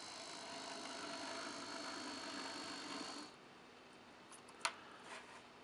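HOn3 brass K-27 model steam locomotive running on 3 volts straight from a battery, its Maxon 7-pole coreless motor and gear train giving a steady high whine. The whine stops suddenly about three seconds in, and a single light click follows a little over a second later.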